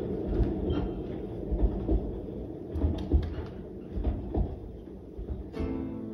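Low rumbling with scattered irregular knocks, then an acoustic guitar starts playing near the end.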